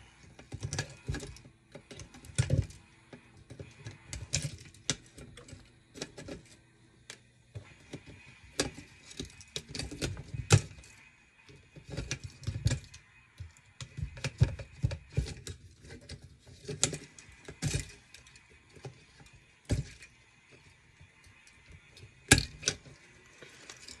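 Irregular clicks, snips and light metallic rattles as pliers grip, pull and cut the wires out of a vintage ITT rotary phone's metal chassis, with brief pauses between bursts.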